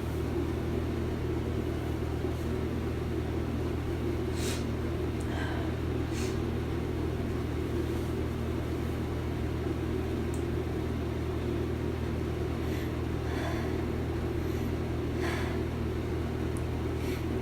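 Steady low mechanical hum, with a few faint sniffles scattered through it.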